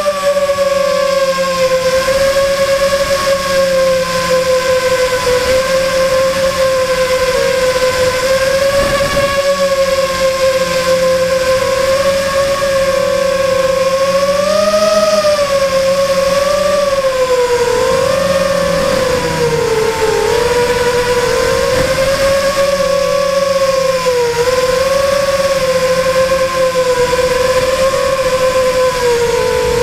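FPV model aircraft's motor and propeller whining steadily as heard from the onboard camera, the pitch dipping and rising as the throttle changes during low, banking flight.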